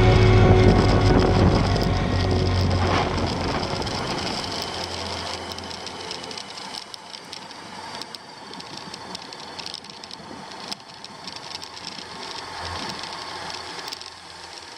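Background music fading out over the first several seconds, leaving a Honda CB Seven Fifty's inline-four engine running faintly at low speed.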